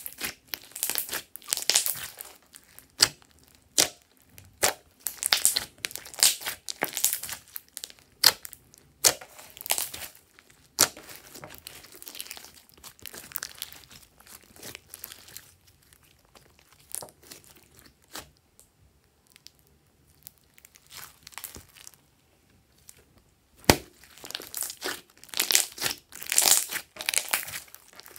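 Glossy slime being squeezed, stretched and kneaded by hand, with wet crackling and squishing. The crackling thins to scattered clicks for a while past the middle and grows dense again near the end.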